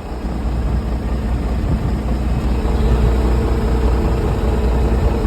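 Strong wind buffeting the microphone as a loud, low, continuous rumble, with a faint steady hum joining about halfway through.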